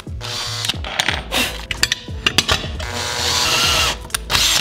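Power drill boring into a steel bar, with irregular metallic clicks and rattles from the bit and chips. In the last second or so the drill runs steadily with a rising whine.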